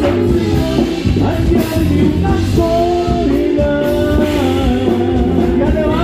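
Loud norteño band music with a singer, playing a steady dance beat under held melody notes.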